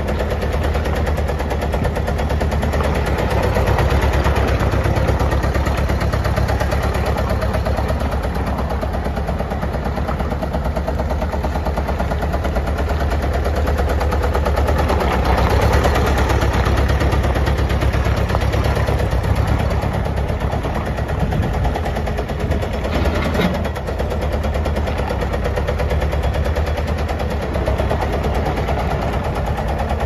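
Bobcat S250 skid steer's 75 hp Kubota diesel engine running steadily with a fast, even pulsing as the machine drives and turns. The engine is listed as smoking and having a tap.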